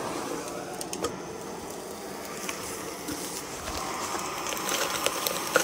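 Gas canister stove burner running with a steady hiss under its pot of water, which is steaming. A few light clicks and taps are heard, mostly near the end.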